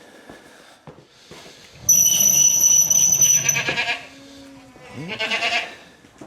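Goats bleating: a loud, shrill bleat about two seconds in, and a shorter one about five seconds in.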